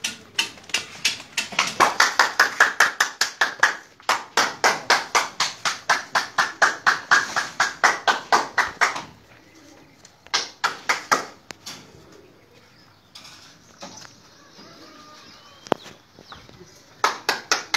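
Rapid, even hand clapping, about five claps a second, that stops about nine seconds in and comes back in two short bursts near the end.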